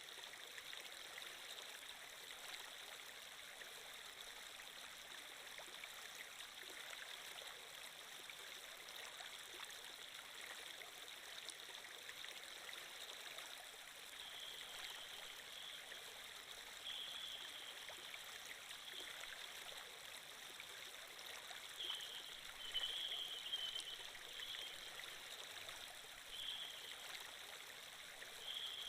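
Steady flow of a running stream as an ambient water sound effect. Short brighter trickling splashes come and go through the second half, loudest a little past the middle.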